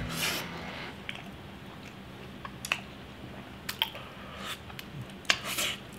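A person chewing a soft mini bundt cake with its mouth close to the microphone, wet smacks and clicks scattered through it, a few sharper ones in the second half.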